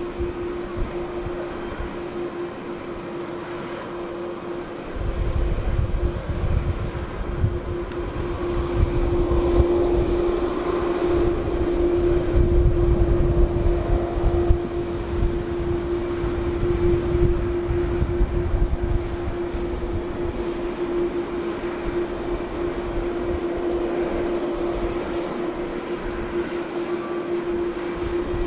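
Airbus A330-200's twin GE CF6-80E1 turbofans running at taxi idle as the airliner rolls past: a steady hum over a deep rumble that swells about five seconds in.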